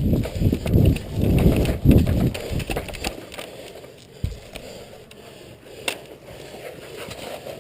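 Close thuds and rustling of a player moving with gear, loudest over the first three seconds, then a few sharp clicks.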